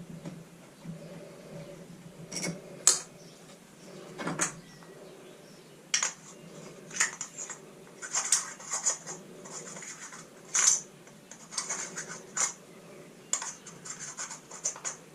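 Small parts and tools being handled at a workbench: scattered sharp clicks, light clinks and short scrapes, over a low steady hum.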